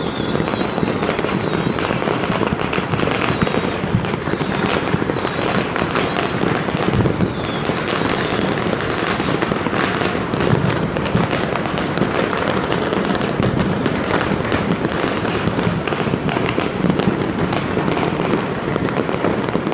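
Fireworks and firecrackers going off all over a city at once: a dense, unbroken crackle of overlapping bangs and pops, near and far, with a few faint short whistles near the start and about seven seconds in.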